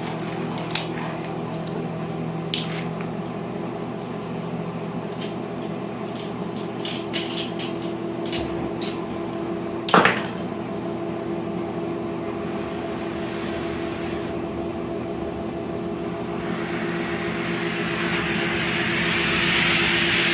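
Metal-on-metal clinks and taps from tools handled on a cast-iron cylinder head over a steady shop hum, with one sharper knock about ten seconds in. From about sixteen seconds a gas torch's rushing flame hiss builds as it heats a twisted-off exhaust manifold bolt.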